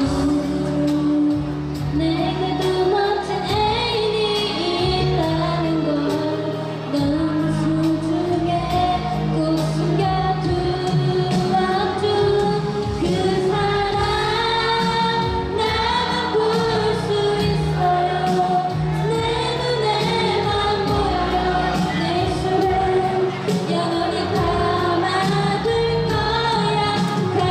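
A girl singing a pop-style song into a microphone over a backing track with a steady beat.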